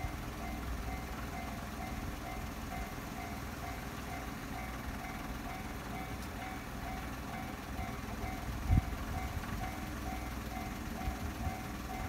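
Japanese railway level-crossing warning bell ringing, an electronic ding repeating at a steady rhythm, signalling an approaching train. A brief low thump comes about three-quarters of the way through.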